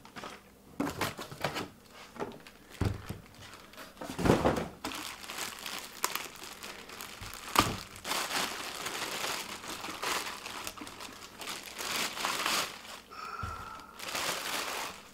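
Plastic bag crinkling and rustling as it is pulled off a newly unboxed jobsite radio, with a few knocks from the cardboard box and the radio being handled, the loudest about four seconds in.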